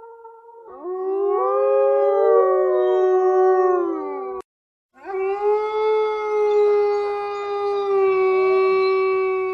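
Wolves howling: a howl trails off, then several voices rise and glide over one another in a chorus that cuts off abruptly about halfway through. After a short silence a single long, steady howl is held to the end.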